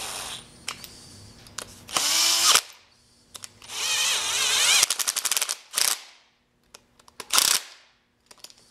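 Bosch drill/driver running in short bursts as it drives the screws into a wood shaper's spindle bearing housing to snug them down. Its motor whine rises and wavers in pitch with each trigger pull, and a quick run of clicks comes about five seconds in.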